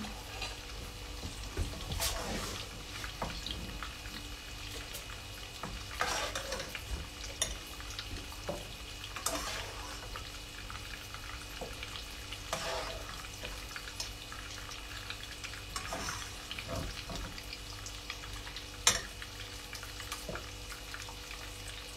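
Breadcrumbed fish fillets shallow-frying in hot oil with a steady sizzle, broken by clinks and scrapes of a spoon against a metal pot as cooked peas are scooped out, with one sharp knock near the end.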